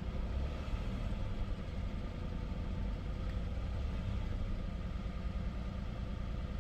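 Hyundai Genesis engine running at a steady speed, with no rise in revs. The car has a throttle fault logged as code P0336: even with the accelerator pressed fully, the engine climbs no higher than about 2000 rpm.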